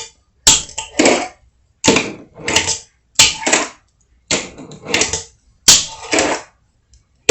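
Fingerboard clacking and rolling on a plywood ramp: sharp wooden clacks, mostly in pairs about half a second apart and about once a second, each followed by a short rolling rasp of the wheels.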